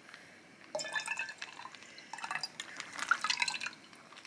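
Cooking liquid dripping and trickling from a plastic sous vide bag into a glass jar already partly full of liquid, in two spells of drips, the first about a second in and the second around two to three and a half seconds in.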